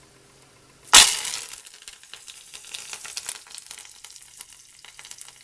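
Curry leaves hitting hot oil in a kadhai: a sudden loud burst of sizzling and spitting about a second in, settling into a steady crackle.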